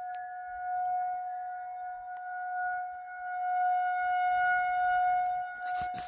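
Outdoor weather warning siren sounding one steady tone, swelling and fading in loudness as it turns.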